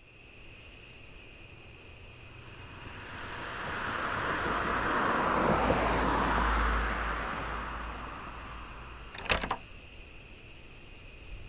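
A vehicle passes by, its noise swelling over a few seconds and fading away, over a steady high-pitched electrical whine. About nine seconds in, a few sharp metallic clicks of the glass door's handle and latch as it is pushed open.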